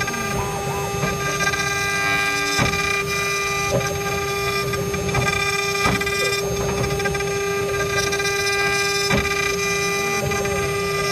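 CNC router spindle with a rotary axis cutting into a turning wooden cylinder: a steady high whine from the spindle over the rough rasp of the cutter in the wood, with a few sharp ticks.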